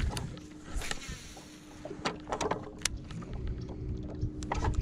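Scattered light clicks and knocks from fishing tackle being handled aboard a plastic kayak, over a low rumble.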